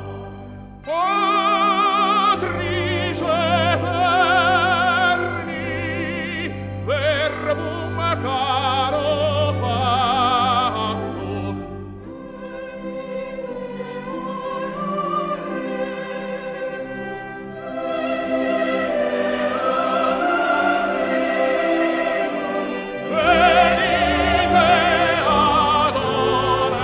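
Stage-musical song: singers with marked vibrato over an orchestra. The voices enter about a second in with a rising swoop. The music goes softer and loses its bass from about halfway through, then comes back full a few seconds before the end.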